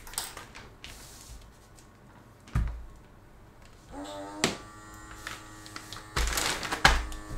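Small electric vacuum pump of a Polyalchemy Airlock filament bag starting about four seconds in, briefly rising in pitch as it spins up and then holding a steady hum while it draws the air out of the bag. A thump comes a couple of seconds in, and near the end a loud rustle of the plastic bag as a hand presses on it.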